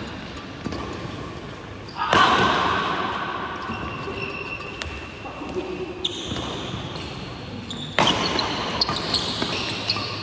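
Badminton rally: racket strikes on the shuttlecock, the hardest about two seconds in and near the end, with lighter hits between and shoe squeaks on the court floor, echoing in a large hall.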